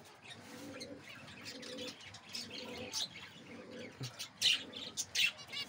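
Zebra finches calling: scattered short, high chirps that become louder and more frequent in the last second and a half.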